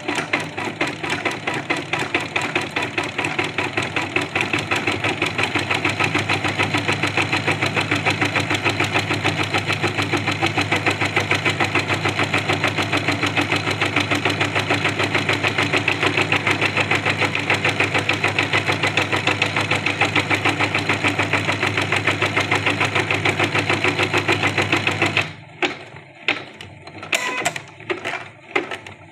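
Janome computerised embroidery machine stitching with a fast, even needle rhythm. About 25 seconds in the stitching stops, a few short separate mechanical sounds follow, and the stitching starts again at the very end.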